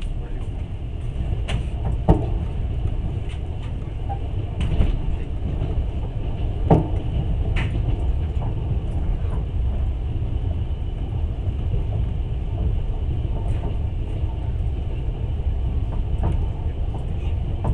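Passenger train rolling along the rails, heard from inside the carriage: a steady low rumble with a few sharp knocks and clacks, loudest about 2 and 7 seconds in.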